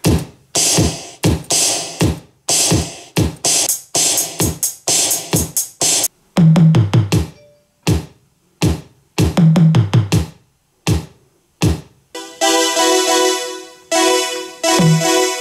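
Drum-machine beats and synth notes from a Teenage Engineering OP-1 synthesizer, played through a TDK A33 Bluetooth speaker. Deep kick drums drop in pitch, and about three seconds before the end a held synth chord comes in under the beat.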